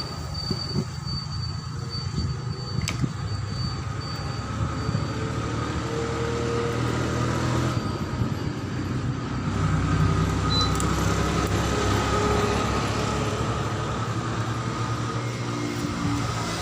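Steady low mechanical hum with a faint higher tone above it, swelling slightly about ten seconds in.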